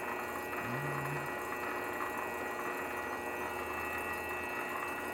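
Grizzly variable-speed lathe running steadily, its motor giving an even hum with a thin high whine as it spins a steel gas bottle.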